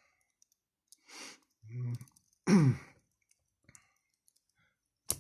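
A man sighs and makes a couple of short vocal sounds, then there are light clicks of a Victorinox Spartan pocket knife being handled and one sharp click near the end as its slipjoint blade snaps into place.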